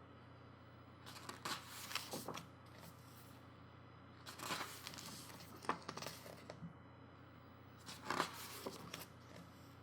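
Pages of a photobook being turned: three short, soft rustles of paper, a few seconds apart.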